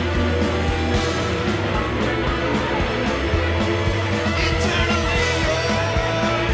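Recorded rock song: electric guitars, bass and drums playing with a steady beat.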